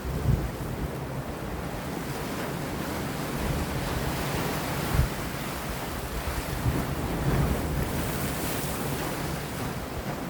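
Sea surf washing against rocks in a steady rush, with wind buffeting the microphone in low thumps a few times.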